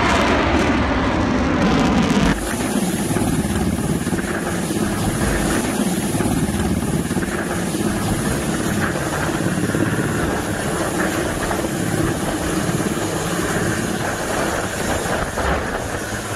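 Fighter jet engine noise, sweeping in pitch as the jet passes overhead, cuts off abruptly about two seconds in. A helicopter's rotor and engine noise follows, steady as it hovers.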